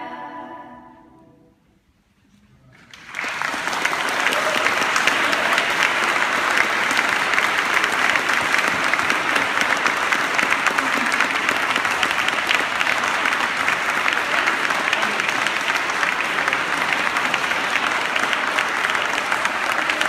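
A girls' choir's final held chord fades away into a moment of near silence, then an audience breaks into applause about three seconds in and keeps clapping steadily.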